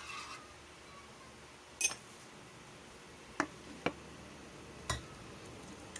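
Four short clinks of a cooking spoon against a metal wok and steel bowls: the loudest about two seconds in, two close together past the middle, and a duller knock near the end.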